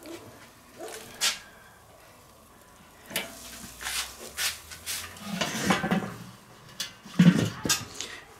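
Metal clinks and scrapes as ribs are set into a stainless steel rib rack standing on the grate of a Weber charcoal kettle grill, then a louder clatter near the end as the enamelled steel lid is put on the kettle.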